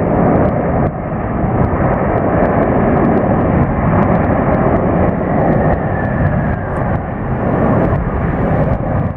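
Loud, steady jet engine noise from a four-engine Boeing 747-400 rolling out along the runway after landing.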